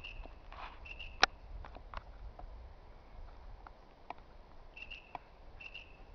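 Scattered snaps of twigs and dry leaf litter, with one sharp crack about a second in. Short high chirps or beeps repeat in groups of three, a little under a second apart, at the start and again near the end.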